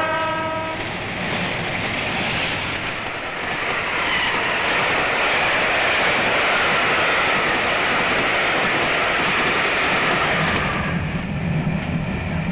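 A steam train's whistle fading out about a second in, then the loud, steady rush of the train passing close by. Near the end this gives way to the lower rumble of the train heard from inside a carriage.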